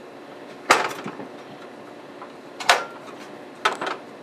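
A few sharp knocks, spaced about two seconds and then one second apart, the last followed quickly by a lighter one.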